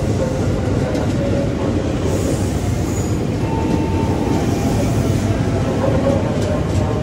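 KRL electric commuter train running on the rails: a loud, steady rumble of wheels and running gear, with faint thin whining tones coming and going.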